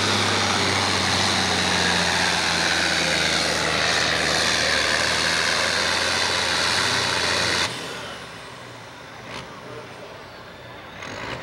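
Farm-stock pulling tractor, a green John Deere, running its diesel engine flat out under load as it pulls the sled. The engine sound drops off suddenly a little under eight seconds in as the pull ends, leaving a much quieter engine running.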